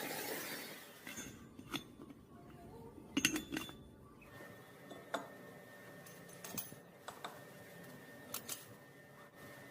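Lathe running noise dies away within the first second, then scattered light metallic clinks and taps as metal tools or parts are handled.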